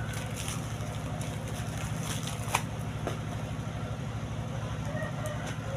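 A motor running steadily with a low, even pulsing hum, overlaid by a few light clicks and one sharp tap about two and a half seconds in.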